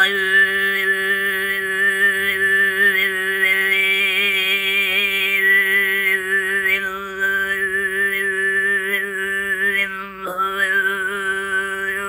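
Tuvan xoomei throat singing: a steady vocal drone held on one pitch, with a whistling melody of overtones moving above it. The drone has a brief break about ten seconds in, then goes on.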